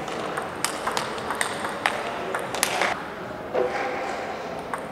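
Table tennis rally: the celluloid-type ball is struck by rubber-faced rackets and bounces on the table. This gives a rapid string of sharp clicks, about two a second, in the first three seconds, with a few more near the end.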